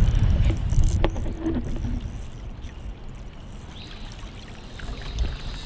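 Outdoor ambience by the water: a low wind rumble that fades away over the first two seconds, then water washing and lapping, with a single sharp click about a second in.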